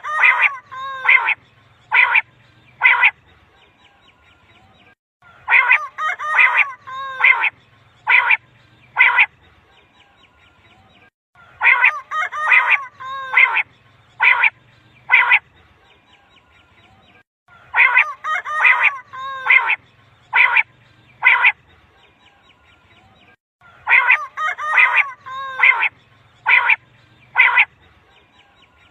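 Quail calling in a repeated phrase: a quick cluster of calls followed by about three separate short notes, repeating about every six seconds, five times. This is the batair call that hunters play to lure quail.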